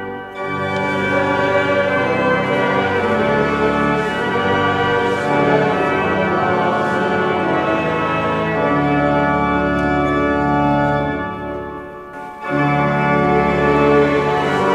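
Pipe organ playing full, sustained chords that change every second or so. About twelve seconds in, the sound briefly falls away before the next loud chord comes in.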